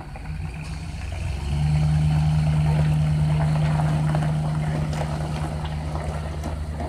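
Class C motorhome's engine running steadily with a low hum, which gets louder about one and a half seconds in.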